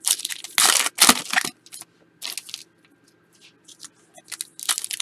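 Panini Prizm football card pack wrappers being torn open and crinkled by hand: a quick run of loud rustles in the first second and a half, then scattered softer ones.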